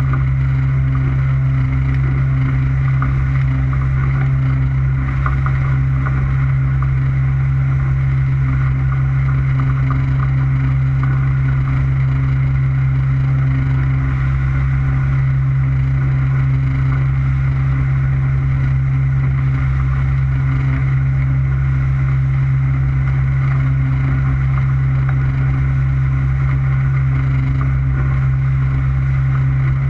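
Motorboat engine running steadily at cruising speed, a constant low drone with some water and wind hiss over it.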